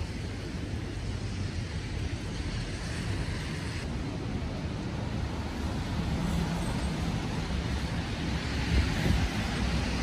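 Strong wind blowing, with a steady, uneven low rumble of wind buffeting the microphone. A car approaches and drives past near the end, growing a little louder.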